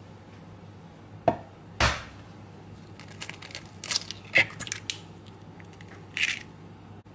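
A hen's egg cracked on the rim of a ceramic bowl: a light tap, then a sharper crack. This is followed by a run of crackling as the shell is pulled apart over the bowl, and one short rustle near the end.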